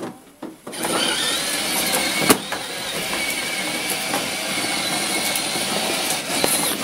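Battery-powered ride-on toy car starting off and driving across paving slabs: its small electric motor and gearbox whining steadily, with its hard plastic wheels rolling on the stone. A single sharp knock about two seconds in.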